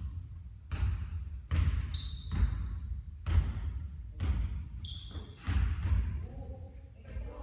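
A basketball bouncing and thudding on a hard court, about ten irregular impacts with a reverberant tail, mixed with a few short high squeaks.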